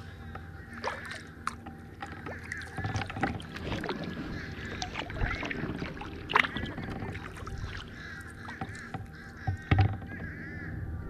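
Kayak paddle strokes dipping and splashing in calm water, with a few sharper splashes or knocks standing out, the loudest a little past six seconds in and near the end. Birds call in the background throughout.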